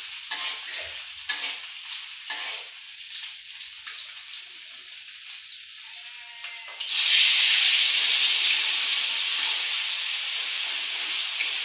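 Ground spice paste frying in oil in a wok, a metal spatula scraping and stirring it. About seven seconds in, the sizzle jumps suddenly to a loud, steady hiss as more ingredients go into the hot oil.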